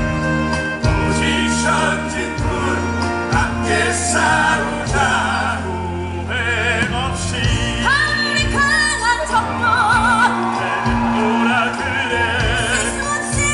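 Stage musical cast singing with the orchestra, several voices together, with held notes sung with wide vibrato in the second half.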